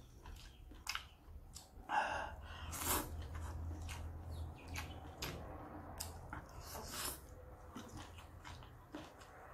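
A person slurping and chewing instant noodles close to the microphone: a loud slurp about two seconds in and another just before three seconds, with many short chewing clicks between, over a steady low hum.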